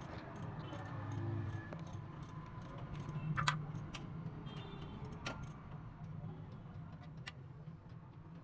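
Scattered light metallic clicks and clinks, with one louder clink about three and a half seconds in, over a steady low hum.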